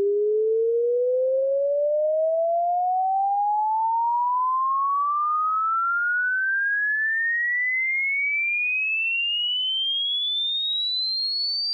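Electronic pure-tone hearing-test sweep: one clean sine tone rising steadily in pitch, from a low hum to a high whistle.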